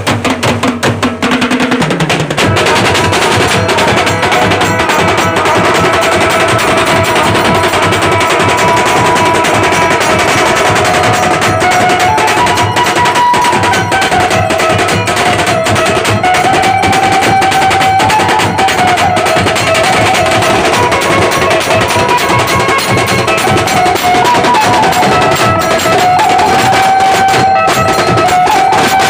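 Loud festival band music: dhol drums and a drum set beating a fast, dense rhythm, with a melody played on an amplified Indian banjo (bulbul tarang) above it.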